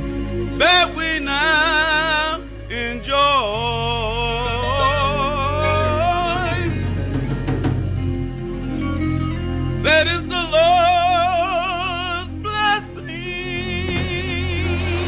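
Gospel music: a solo voice sings three long phrases with heavy vibrato over a bass line, keyboard and drums.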